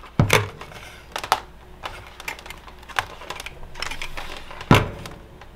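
Scattered light clicks and taps from a handheld digital multimeter and its test probes and leads being handled, with a louder knock just after the start and another near the end.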